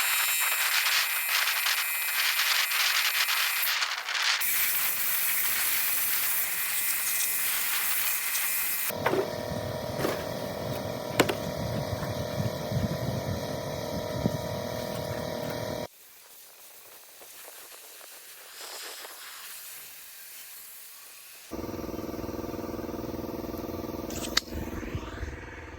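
Sandblaster blasting abrasive at sheet metal with a loud, steady hiss, cut together with quieter stretches of shop noise that carry a steady hum and scattered clicks; the level drops sharply about 16 seconds in.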